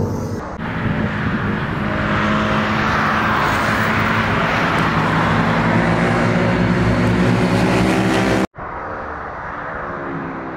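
Several sport motorcycles passing in a group through a bend, their engines held at fairly steady revs over tyre and wind noise. About eight seconds in, the sound cuts off abruptly, and a fainter motorcycle engine follows, rising in pitch.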